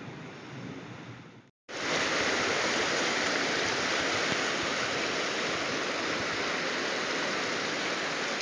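Flooded creek rushing, a steady loud roar of fast, churning floodwater. It comes in after a quieter start and a brief break in the sound about a second and a half in.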